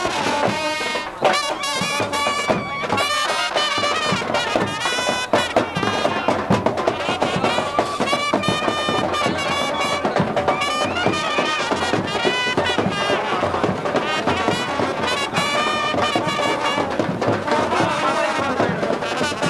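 Music led by brass instruments playing a wavering melody, continuing without a break.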